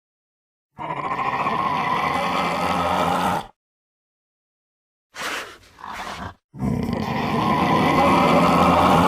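Designed film sound effects of a Baryonyx dinosaur roaring: a rough roar lasting nearly three seconds, a pause, two short calls, then another long roar.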